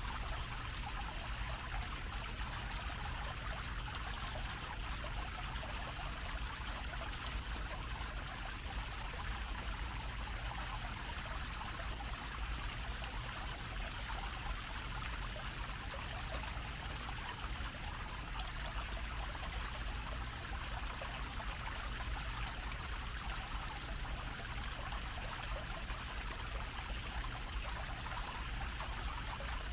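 Fountain water splashing steadily as a dome-shaped jet falls back onto the grate-covered basin, an even rushing with a low rumble underneath.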